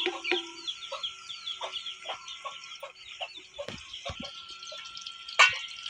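Chickens clucking in short repeated calls, with many quick high chirps over them. A sharp knock stands out about five and a half seconds in.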